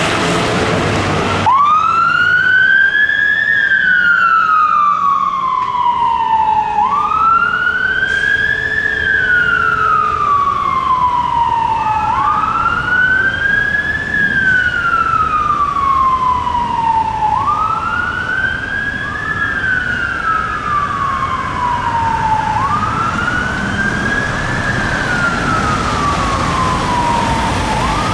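Fire engine siren on a slow wail, each cycle rising quickly and falling slowly, repeating about every five seconds. It comes on about a second and a half in, over engine and road noise.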